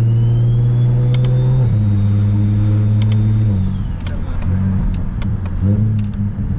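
Straight-piped single-turbo N54 BMW 335is engine pulling hard, its drone stepping down in pitch about two seconds in and again around three and a half seconds, with a high whine over it that stops at the second drop. Sharp pops and crackles follow as the engine runs on off the throttle.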